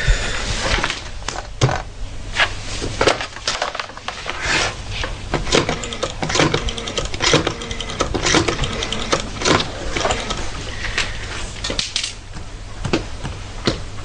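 A desk telephone handled and dialled: a run of irregular clicks and knocks from the handset and phone base, over a steady low hum.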